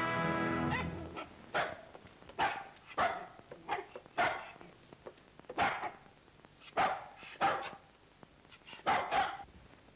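A small shaggy young dog barking: about ten sharp barks, single or in quick pairs, with short pauses between. Orchestral music fades out in the first second.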